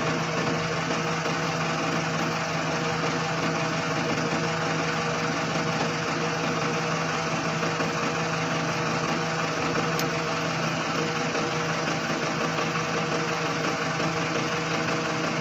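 Dynapac road roller's diesel engine running steadily.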